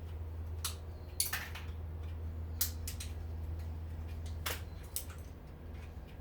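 Small microwave turntable motors being taken apart by hand: about six sharp, irregular clicks and snaps of metal and plastic parts, over a steady low hum.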